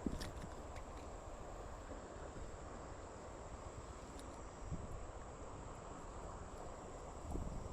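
Insects chirring steadily on one high note over a faint outdoor rumble, with a few soft knocks of handling.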